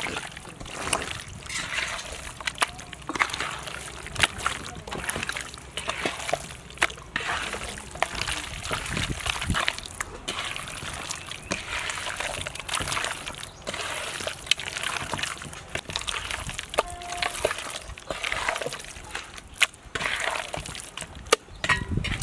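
Water sloshing and splashing in irregular short bursts, with frequent sharp clicks and knocks.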